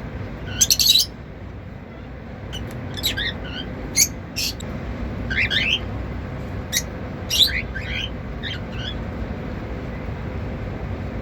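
Cockatiels chirping in short, sharp calls and quick falling whistles, scattered irregularly, with the loudest cluster just under a second in. A steady low background hum runs underneath.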